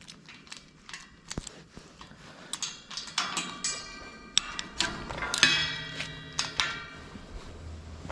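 A gate being unlocked with a key and opened: a run of small metallic clicks and knocks, then drawn-out squeals with several pitches at once, broken by knocks, as the gate swings.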